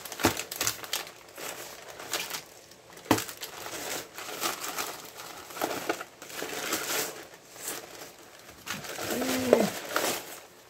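Plastic poly mailer bag crinkling and rustling as it is handled and items are pulled out of it, with a couple of sharp taps and a brief low hum near the end.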